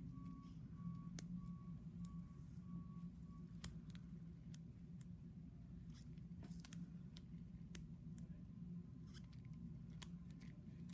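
Surgical scissors snipping at the scalp cyst, sharp metal clicks at irregular intervals, over a low steady hum. A repeated electronic beep, about two a second, stops about three seconds in.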